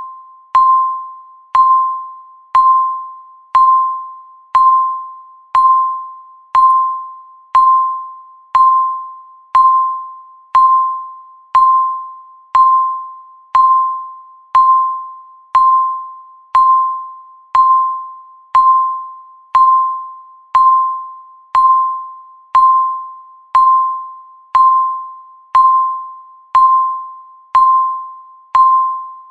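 Countdown timer beeps: a single mid-pitched electronic beep once a second, each starting sharply and fading away, marking each second of the count.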